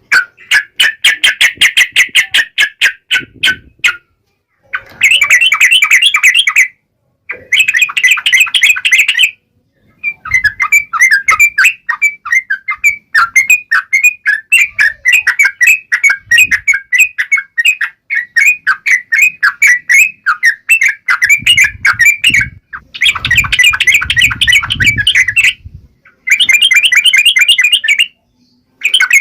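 Yellow-vented bulbul (trucukan) calling in a series of bursts of rapid, sharp chattering notes, broken by short silences.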